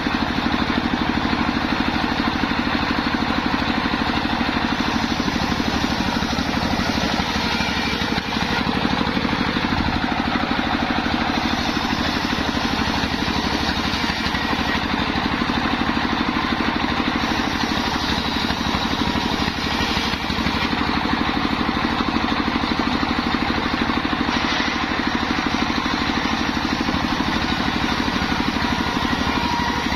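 Engine of a homemade circular saw rig running steadily at a constant pace throughout.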